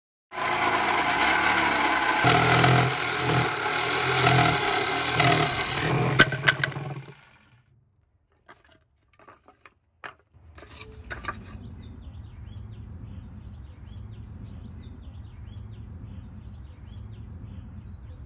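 Reciprocating saw cutting through the cabinet's wooden side, running for about seven seconds and then stopping. A few knocks follow as the cut wood is handled, then a faint steady hum with bird chirps.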